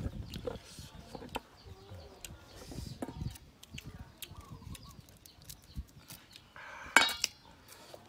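Knives cutting and peeling hard green ambarella fruit, with scattered small clicks and scrapes. About seven seconds in comes a loud ringing clink, as a knife is dropped into a stainless-steel bowl of fruit.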